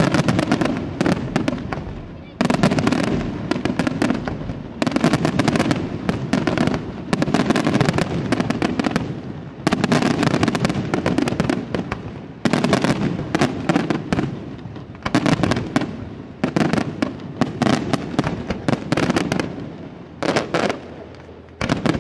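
Aerial firework shells bursting in quick succession: a loud bang every two to three seconds, each followed by rapid crackling that fades away.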